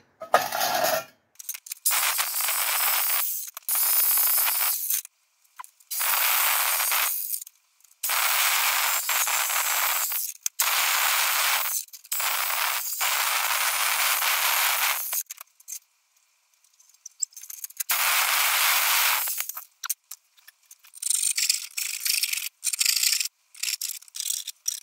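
Electric jigsaw cutting a circular hole in a sheet of metal, running in repeated spells of one to three seconds with brief stops and a longer pause about two-thirds of the way in. Near the end, a few short knocks and rattles.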